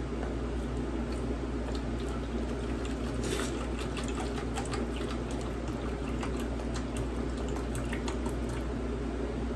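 Beef broth pouring from a carton spout into a foil roasting pan of seasoned beef roasts, the stream splashing irregularly. A steady low hum runs beneath.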